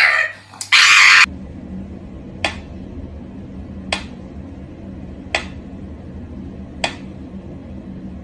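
A loud shriek cuts off about a second in. Then a mechanical pendulum metronome ticks slowly, one sharp click about every second and a half, over a low steady hum.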